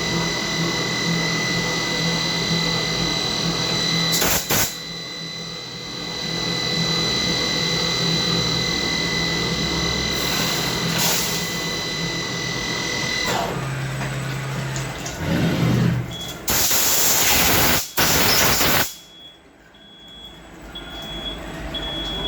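CNC machining center running: a steady high whine over a low pulsing hum, broken by loud hissing bursts, with the whine stopping about thirteen seconds in. Near the end a short beep repeats at an even pace.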